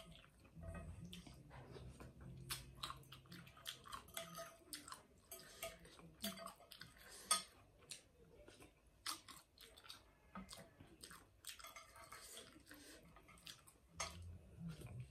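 Faint close-up chewing and eating of rice noodle soup, with many small irregular mouth clicks; the loudest click comes a little past the middle.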